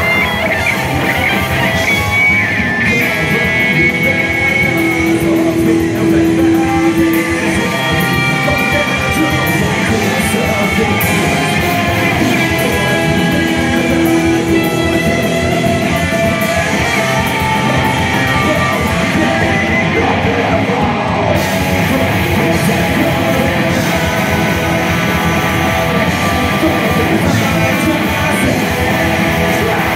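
Live heavy rock band playing: electric guitars, bass guitar and a drum kit, with a male singer on the microphone.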